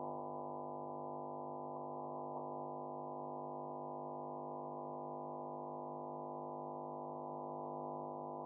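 A steady, unchanging drone of several held tones, with no rhythm or stitching sound.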